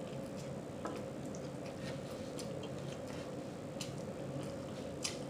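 A person chewing food with open-mouthed smacking: scattered short wet clicks, one a little louder near the end, over a steady low background hum.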